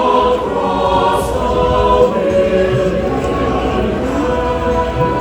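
Background music of sustained, layered choir-like voices holding long chords.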